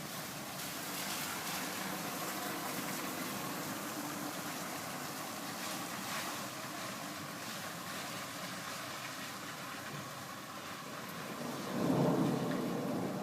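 Steady rain hissing in a thunderstorm, with a low rumble of thunder swelling near the end.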